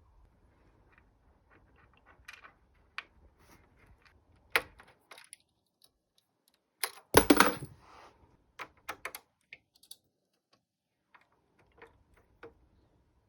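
Small clicks and taps of objects being handled, with a louder clatter about seven seconds in.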